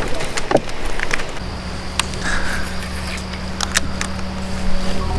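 Clicks and taps of a baitcasting rod and reel being handled, then a steady low hum that sets in about one and a half seconds in and keeps going, with a few more clicks over it.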